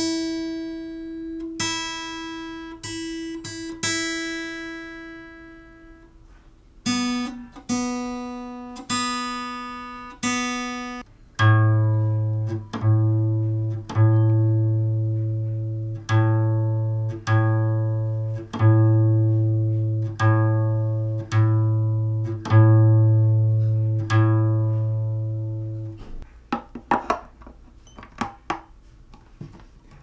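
Fender acoustic guitar being tuned: single open strings plucked one at a time and left to ring, about five times on the high E string, then four times on the B, then about ten times on the low A. Near the end come a few soft clicks and rattles as a capo is clamped onto the neck.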